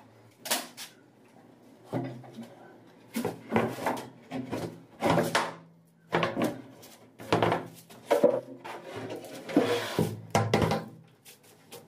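Irregular wooden knocks, bumps and scraping as a large plywood sheet is handled, shifted and lifted on the floor. There is a longer scrape near the end.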